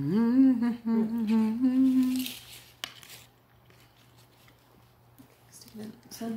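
A woman humming a tune, holding fairly steady notes for about two seconds; after a quiet pause she starts humming again near the end.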